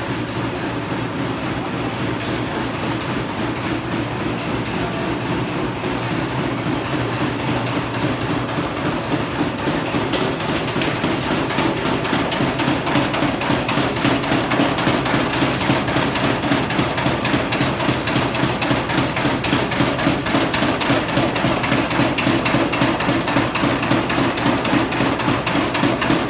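Vibrating screen sieving pillow-shaped charcoal briquettes, running with a steady machine hum and a fast, continuous rattle of briquettes knocking on the metal mesh and chute. It grows louder a little under halfway through.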